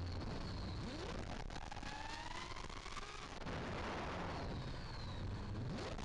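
FPV racing quadcopter's brushless motors and Dalprop Fold 5.1 folding propellers running under hard throttle changes: a whine that slides up and down in pitch over a rushing noise, with a thicker rush about halfway through.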